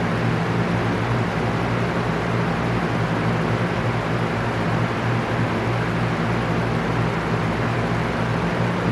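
Electric fan running steadily: an even rush of moving air with a steady low hum underneath.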